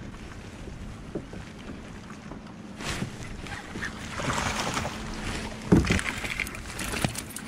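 Splashing and knocking at the side of a fishing kayak as a hooked bass is brought in, with wind on the microphone and one hard knock against the kayak about three-quarters of the way through.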